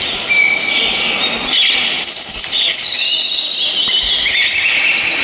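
Recorded forest birdsong: many birds chirping and trilling at once, their calls overlapping.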